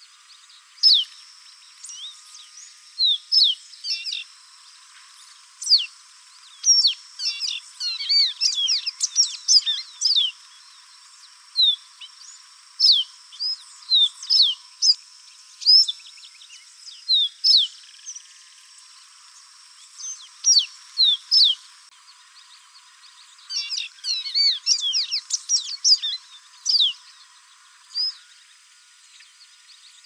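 Male pearly-bellied seedeater (caboclinho-branco) singing: high, quick down-slurred whistled notes, some single and some run together into fast, varied bursts, with short pauses between phrases.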